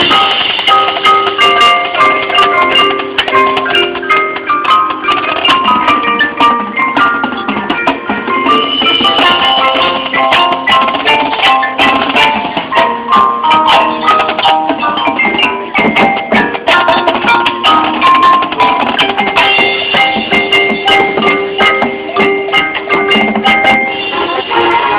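School marching band playing, with mallet percussion (marimba and xylophone) and drum hits prominent in a run of quick notes.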